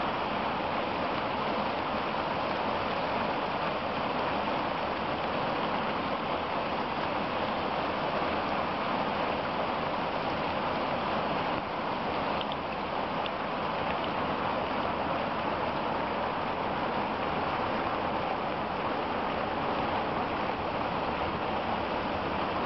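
Ice pellets falling and striking the frozen ground, plants and the pellet-covered surface of a garden pond, a dense, steady hiss.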